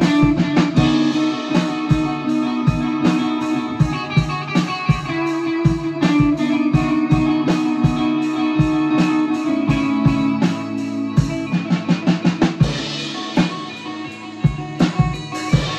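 Improvised jam of electric guitar, trumpet and drum kit: long held trumpet notes over guitar and steady drum hits. The trumpet drops out about twelve seconds in, leaving guitar and drums after a quick flurry of drum hits.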